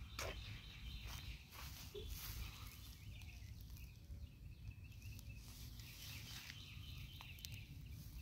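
Quiet outdoor ambience: a few soft footsteps and knocks on a concrete path over a steady low rumble, with faint high chirps in the middle.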